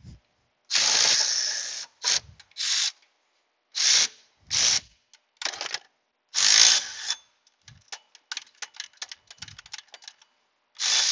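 Cordless ratchet turning a 13 mm bolt: several short bursts of the ratchet running, then about three seconds of quick ratchet clicks as it is worked by hand near the end.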